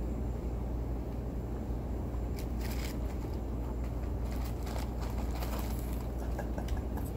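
Eating noises: scattered crackles and clicks of food and packaging being handled and bitten, clustered a little over two seconds in and again from about four to six seconds in, over a steady low hum.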